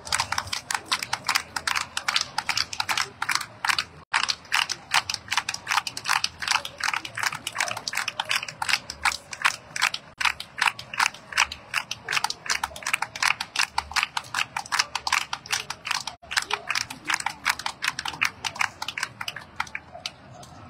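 Hand clapping in a steady fast rhythm, about four sharp claps a second, kept up without a break.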